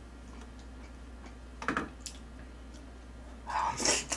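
Close-miked eating sounds: faint clicks, a brief mouth noise about halfway through, then loud slurping and smacking near the end as a chopstick-load of seasoned vegetables is drawn into the mouth.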